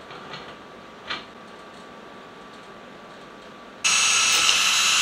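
A few light handling clicks, then nearly four seconds in an electric drill starts and runs at a steady high whine, drilling a small hole in a brass hex piece held in a vise.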